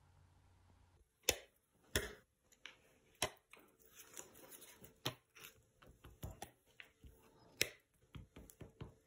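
Hand-made foam and cardboard printing blocks being dabbed into a paint-soaked sponge ink pad and pressed on the table: a string of irregular soft taps and clicks, with a few sharper knocks spread through. Nearly silent for the first second.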